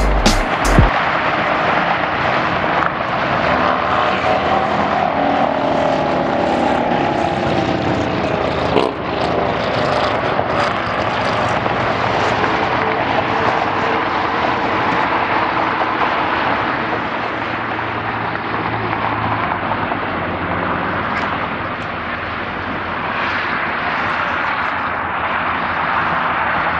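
Airbus A340-300 on final approach, its four jet engines giving a steady loud roar, with a humming engine tone that wavers in pitch for several seconds early in the approach.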